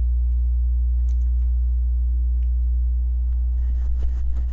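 A steady low hum throughout, with faint cardboard rustles and knocks from a long rail-kit box being handled, growing busier near the end.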